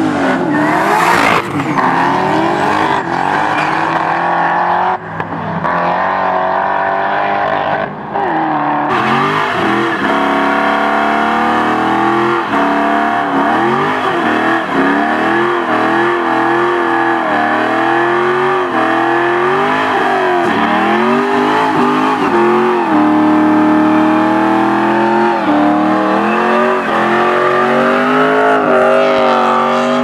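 Muscle car V8 engines at full throttle: a drag launch in the first seconds with the revs climbing, then, after a couple of abrupt cuts, a long burnout with the engine held at high revs, wavering up and down as the rear tires spin in the smoke.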